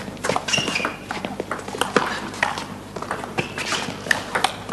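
Table tennis rally: a celluloid ball ticking sharply off rubber-covered bats and the table top, several hits at an uneven pace as an attacker plays against a chopping defender.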